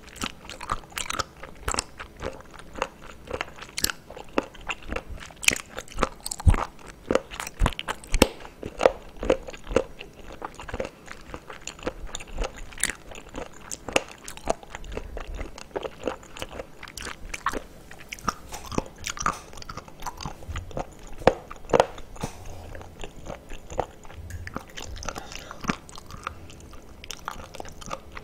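Close-miked chewing of raw abalone: a dense, irregular run of crunching clicks and mouth sounds as the firm flesh is chewed.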